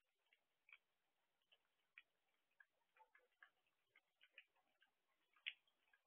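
Faint, irregular ticks and taps of raindrops dripping onto a hard surface, a few each second at no steady pace, the loudest about five and a half seconds in.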